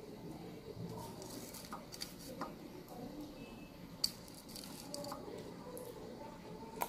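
Faint handling clicks and taps as small sour jujube fruits are picked up off a glass tabletop and eaten, with one sharp click about four seconds in and soft chewing near the end.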